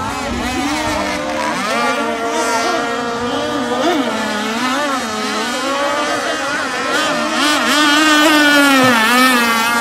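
Several two-stroke gasoline RC racing boat engines running at high revs, their pitches rising and falling independently as the boats throttle and turn, growing louder about eight seconds in.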